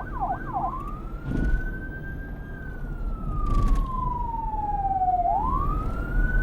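Emergency vehicle siren switching from a fast yelp to a slow wail about a second in: the pitch rises, falls slowly over about three seconds, and rises again near the end. A low rumble of traffic runs underneath.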